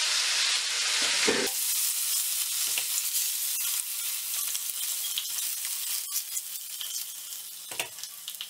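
Hot ghee tempering with garlic, ginger and cumin seeds sizzling as it is poured onto cooked mustard-greens saag. The sizzle is loudest for about the first second and a half, then eases off, with light clicks of a spatula and spoon against the pans.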